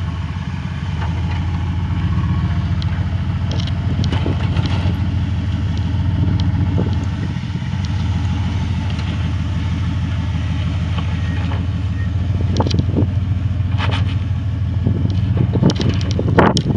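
Full-size Ford Bronco's engine running steadily at low speed as it crawls up a rock ledge. Short clicks and knocks from tyres and rocks come through it and grow more frequent near the end.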